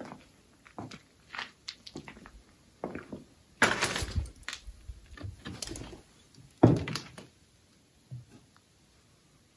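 Irregular knocks and thuds: a few light knocks, then a loud rattling crash about four seconds in, a scattering of smaller knocks, and a heavy thump near seven seconds, after which it goes quiet.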